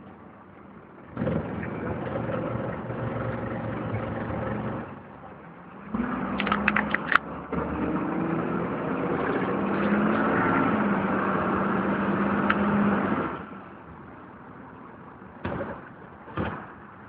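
Dennis Dart SLF single-decker bus heard from inside the saloon: the engine and transmission pull away twice with rising, gliding tones, with sharp rattling clicks about six to seven seconds in. The bus then drops back to a quieter idle, with a few short knocks near the end.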